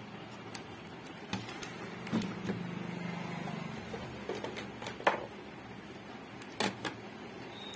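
Scattered clicks and knocks of tools and parts being handled during electronics repair work. A low steady hum starts about two seconds in and lasts about a second and a half.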